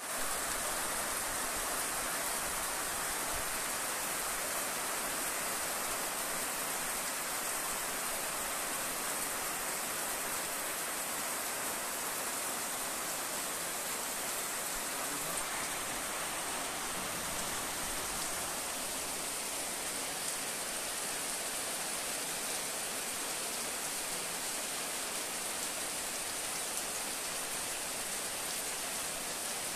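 Heavy rain pouring steadily: an even, unbroken hiss of rain beating on a wet road and corrugated roofs.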